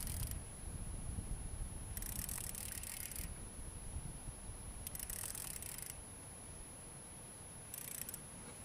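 Baitcasting fishing reel being worked against a hooked fish, with three short hissing bursts of about a second or less each, over a low wind rumble on the microphone.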